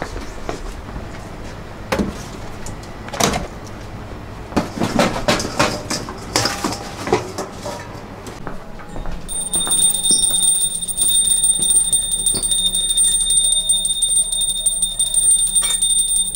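Pots and utensils clatter and knock. About nine seconds in, a small brass hand bell starts ringing fast and continuously, as it is rung while food is offered to Krishna.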